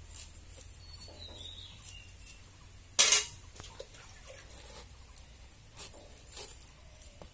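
Raw jackfruit being sliced on an upright fixed floor blade over a bamboo tray: small clicks and scraping as the fruit is worked, with one sharp, loud crack about three seconds in.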